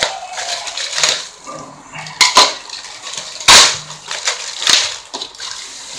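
Plastic packaging, a black courier mailer bag and a clear plastic bag, being torn open and crumpled by hand: irregular sharp crackles and rips, the loudest about three and a half seconds in.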